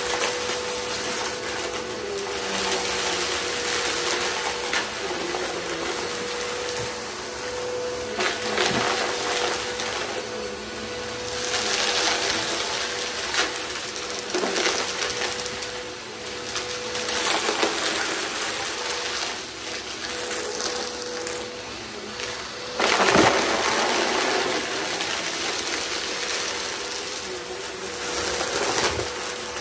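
Upright vacuum cleaner running with a steady motor whine while sucking up a pile of hair, small rubber bands and grit from a rug: the debris rattles and crunches irregularly through the machine, with the biggest surge about 23 seconds in.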